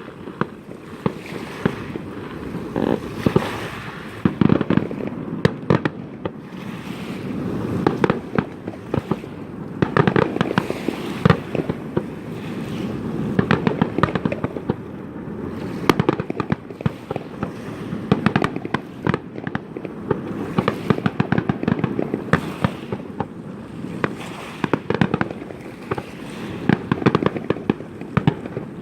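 Fireworks display: a continuous barrage of booming shell bursts and sharp crackling reports, several a second, over a low rumble.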